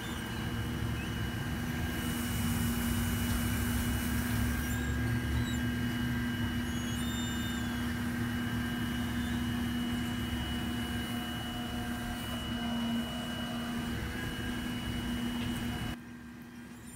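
Claw truck's engine running steadily under the load of its hydraulic knuckle boom and grapple, a constant hum with a faint high whine, as the grapple packs down and picks up storm debris. The sound drops sharply about a second before the end.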